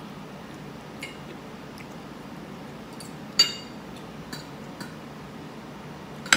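Metal fork clinking against a dinner plate several times, with two louder, ringing clinks about three and a half seconds in and at the very end.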